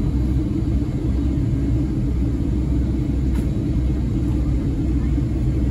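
Steady cabin noise inside a Boeing 757-300 on approach: an even low rumble of engines and airflow heard from a window seat.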